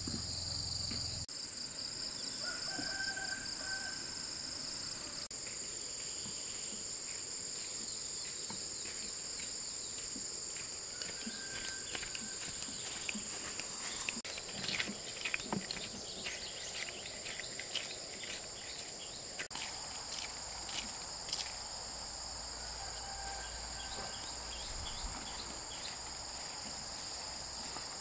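Insects trilling steadily in chorus, several high-pitched drones layered at once, with a cluster of sharp clicks and knocks about halfway through and a few brief short notes over the top.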